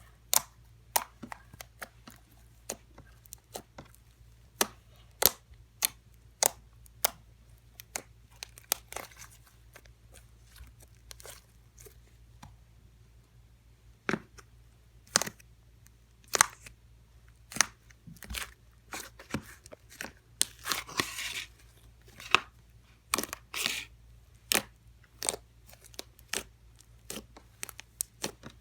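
Slime being squeezed and poked by hand, giving irregular sharp pops and clicks, with a short stretch of crackling about two-thirds of the way through.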